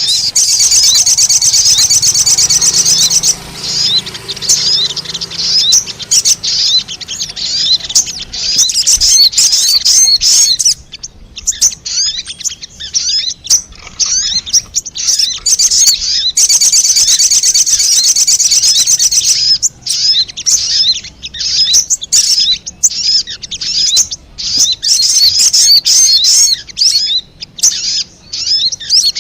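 Sogon (little spiderhunter) calling: rapid, high-pitched chirps strung into dense, fast runs, broken by short gaps and choppier bursts. It is a lure-call recording used to draw wild sogon in.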